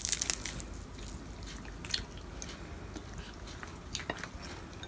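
Crisp fried dried galunggong being torn apart by hand: a quick run of crackles and snaps at the start, then a few faint scattered clicks.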